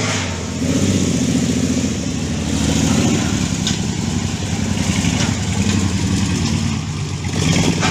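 Toyota Land Cruiser hardtop's engine running, its note rising and falling in several waves as the throttle opens and eases.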